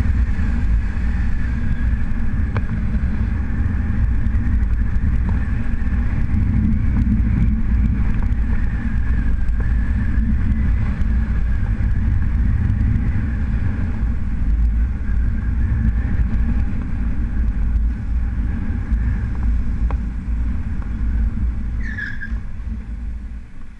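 Motorcycle riding along a city street, its engine and the wind making a steady low rumble that quietens near the end as it slows. A short high-pitched squeal comes about 22 seconds in.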